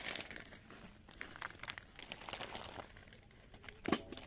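Crinkly rustling of a woven plastic sack and light clicks of apple snail shells knocking together as live snails are handled, with one louder short knock near the end.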